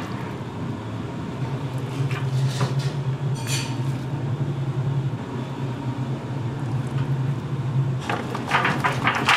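Gloved hands moving raw chicken frames around in a steel stock pot, with a few brief wet handling sounds, then a tray of raw chicken feet tipped into the pot about eight seconds in, a dense sliding clatter of feet against steel. A steady low hum runs underneath.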